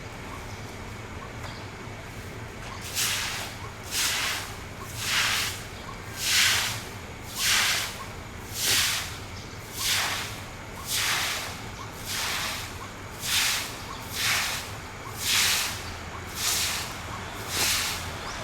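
A long passenger train's coaches going past, making a rhythmic hissing whoosh about once a second as each coach passes, beginning a few seconds in over a steady background rumble.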